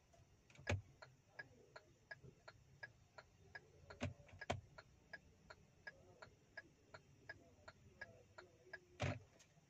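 Car turn-signal indicator ticking steadily, about three short ticks a second, with a few louder clicks among them. The camera screen's view switches to the right and then the left side as it ticks, which is how a surround-camera system follows the indicators.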